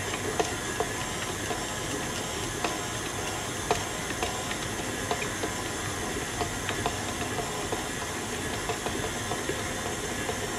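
Electric stand mixer running steadily as it kneads pizza dough that has come together into a ball, with a few light knocks scattered through the motor noise.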